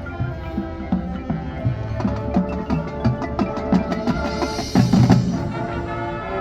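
Marching band playing: sustained brass and wind chords over a steady pattern of drumline hits, with a cymbal crash swelling a little after the midpoint.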